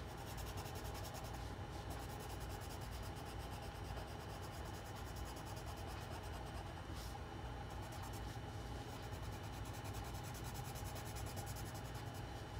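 Black colored pencil shading on paper, a steady scratching as the lead is rubbed back and forth to fill in an area solid black.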